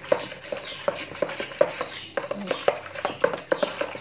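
Metal spoon stirring a thick flour, milk and yeast batter in a plastic mixing bowl, knocking against the bowl in irregular taps, about three or four a second.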